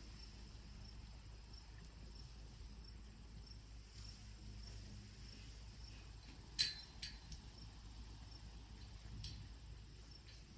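A cricket chirping steadily, a short high chirp roughly every half second. A sharp click a little past the middle, followed by a few fainter clicks.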